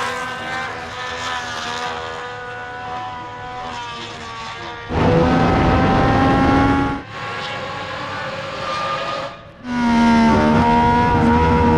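1965 Ferrari Formula One car's 1.5-litre V12 racing engine running at high revs. Its note fades at first, then comes in much louder twice, for about two and three seconds, each time starting and stopping abruptly.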